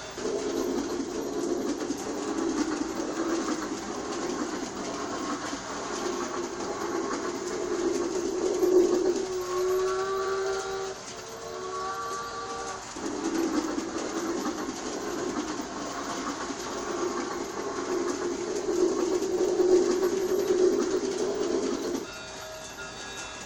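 Toy G-scale steam train set running on its track: a steady rattling rumble of motor and wheels, broken for a few seconds in the middle by the set's pitched whistle.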